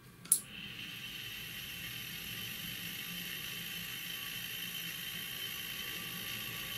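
A switch clicks about a third of a second in, then the small geared test motor inside a Boeing stall warning module runs with a steady whir, turning the module's black-and-white test indicator disc in test mode.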